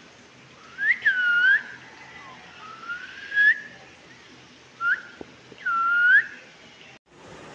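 A person whistling about five short sliding notes, some rising and some dipping then rising. The sound cuts off suddenly near the end.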